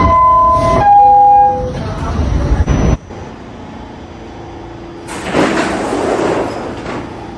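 R46 subway car door chime: two descending tones, each about three-quarters of a second long, over loud rumbling noise that cuts off abruptly about three seconds in. A hiss rises around five seconds in and fades out by seven.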